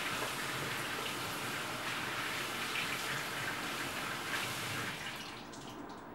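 Kitchen tap running into a stainless steel sink in a steady stream, with hands working under it; the flow drops off about five seconds in.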